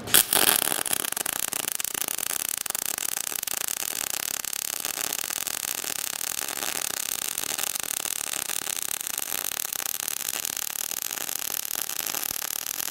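Globular-transfer MIG welding arc at 24 volts and 475 wire feed speed on 0.030 in wire, running a fillet weld on 3/8 in steel plate: a steady, dense crackle and hiss as globs of metal spatter into the pool. The arc strikes with a sharp burst right at the start.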